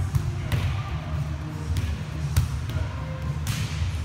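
Volleyballs being struck and bouncing on an indoor court: about four sharp slaps spread over three seconds, the loudest near the end.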